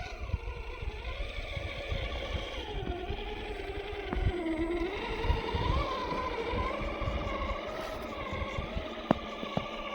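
Electric motor and gear drive of a Traxxas TRX4 RC crawler whining, its pitch rising and falling smoothly with the throttle, over a rough low rumble with a few sharp knocks.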